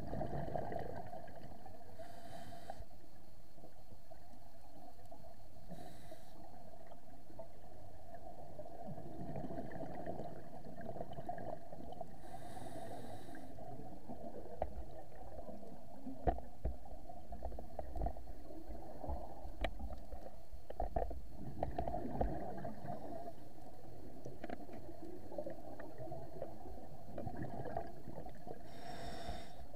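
Underwater sound heard through an action camera's waterproof housing: a steady muffled rumble and gurgle of a scuba diver's exhaled bubbles, with a few brief hisses of breaths drawn through the regulator. There is a cluster of short knocks and clicks in the middle.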